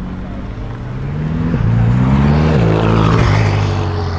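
BMW performance car accelerating past, its engine and exhaust note climbing in pitch and dropping sharply at two quick upshifts, loudest as it goes by.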